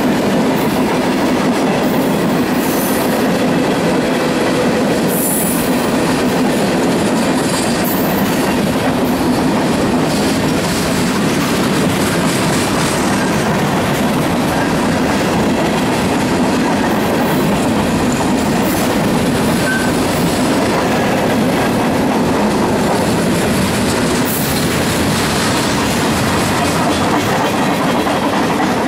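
Freight train cars rolling past on steel rails: a steady, loud noise of wheels on track, with brief high-pitched squeals now and then.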